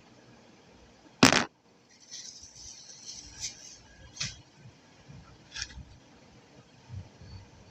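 Clay being handled while a multani mitti paste is made: one loud, short crunch about a second in, then a scratchy hiss and three light clicks.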